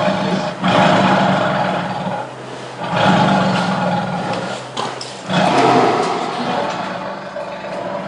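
Amur (Siberian) tiger roaring: three long roars one after another, each about two seconds, coming from an angry, bared-teeth tiger.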